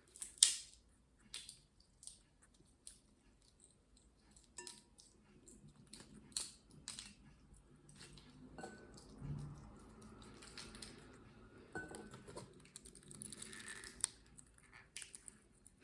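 Green-cheeked conure's beak picking and biting at a walnut held in its foot: scattered small clicks and crunches, irregular and mostly faint, with a sharper click about half a second in.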